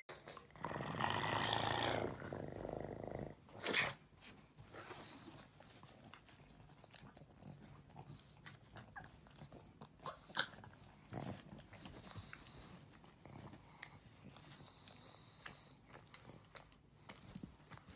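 Two pugs play-biting on a bed, one mouthing at the other's head, with soft nibbling and scuffling sounds and scattered small clicks. A louder noisy sound lasting about a second and a half comes near the start.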